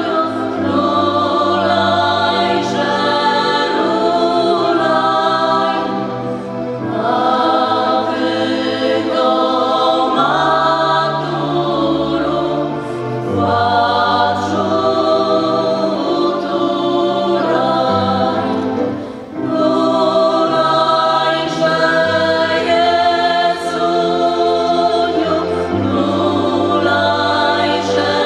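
Women's vocal ensemble singing a Polish Christmas carol in phrases of held notes, over low sustained accompaniment notes, with short breaths between phrases about six and nineteen seconds in.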